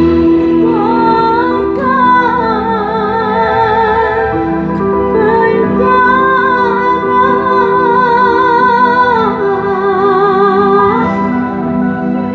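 Female singer singing a dangdut song with heavy vibrato, entering about a second in over a band's sustained chords, amplified through a PA sound system during a sound check.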